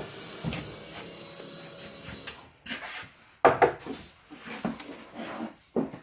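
Electric motor of a StripMeister E250 wire-stripping machine running steadily, then cutting out about two seconds in. After it, a string of irregular knocks and rubbing sounds.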